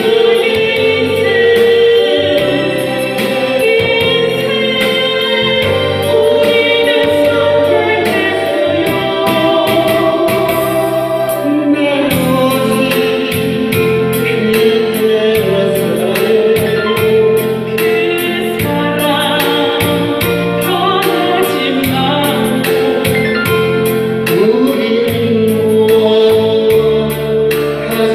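A man and a woman singing a gospel duet into microphones over a recorded backing track with a steady beat, amplified through PA speakers.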